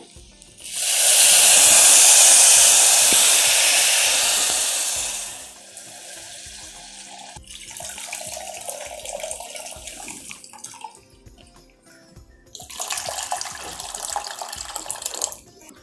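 Tamarind water poured from a steel vessel into a stone pot over the oil-fried tempering: a loud, even rush of liquid for about five seconds. Near the end, water is poured from a plastic bottle into the pot for a few seconds.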